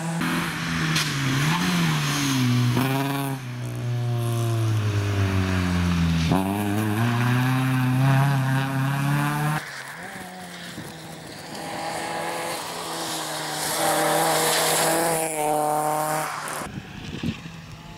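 Fiat Seicento rally car driven hard on a rally stage. The engine revs climb, drop sharply at gear changes and lifts, and climb again. The engine note cuts off near the end, leaving rushing noise.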